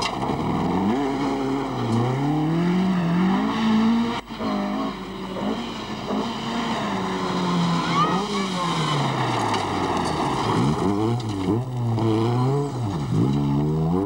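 Rally car engine revving hard, its pitch climbing and falling again and again through gear changes and lifts off the throttle. There is a sharp break about four seconds in, and quicker rises and falls near the end.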